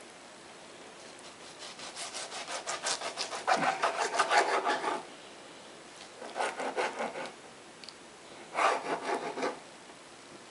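A kitchen knife sawing back and forth through raw chicken breast against a plastic cutting board, in quick repeated strokes. There is one long run of strokes about two seconds in, then two shorter runs a few seconds apart.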